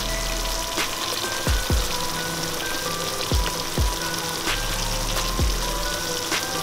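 Thick chicken curry sizzling and bubbling in an aluminium pot on the stove, a steady hiss, under background music with a beat.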